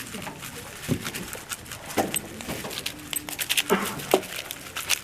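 Rapid irregular clicking of a speedcube being turned during a solve, with a few louder, short, breathy sounds mixed in about one, two and four seconds in, the loudest near four seconds.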